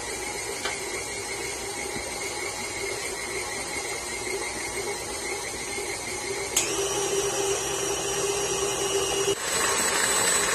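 KitchenAid Artisan stand mixer running, its flat beater turning through cake batter with a steady motor whine. About two-thirds of the way in and again near the end the speed is turned up, and each time the pitch shifts and the mixer gets louder.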